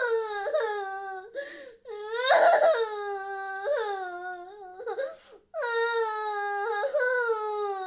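A high-pitched girl's voice crying: long wailing cries that slide down in pitch, broken by short hiccuping sobs and a sharp intake of breath about five seconds in.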